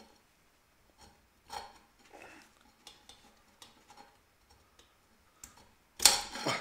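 Scattered light metal clicks and clinks of a steel drum-brake shoe, its springs and water pump pliers being worked by hand while the handbrake cable is refitted, with a louder, longer noise near the end.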